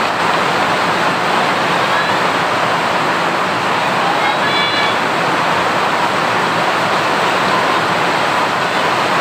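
Steady loud rushing noise, with a short high-pitched sound about four and a half seconds in.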